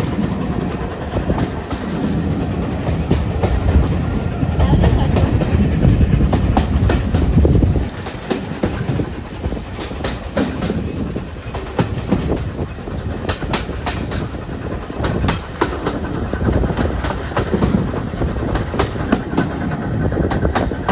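Train hauled by an LNER A4 class steam locomotive passing. A heavy low rumble eases about eight seconds in, then the carriage wheels click repeatedly over the rail joints.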